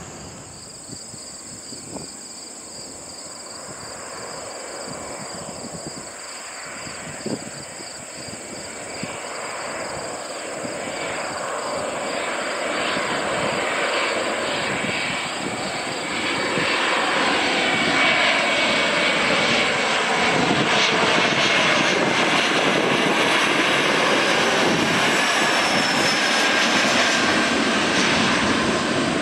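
A CRJ-700 regional jet's two turbofan engines, growing steadily louder as the jet comes closer, with a wavering whine sweeping up and down in the noise over the last half. Crickets chirp steadily at first, before the jet noise covers them.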